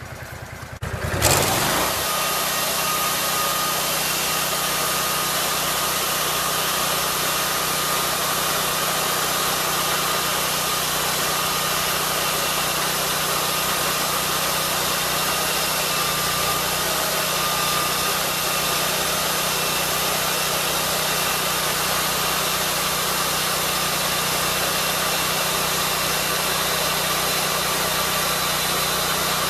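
Lucas swingblade sawmill's engine revving up from idle with a rising sweep about a second in, then running steadily at full throttle as the circular blade saws along the log.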